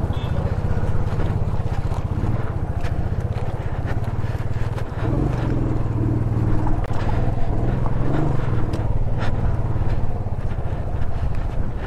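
A single-cylinder Bajaj Dominar motorcycle engine running steadily under way, with a few sharp knocks from the bike over rough ground.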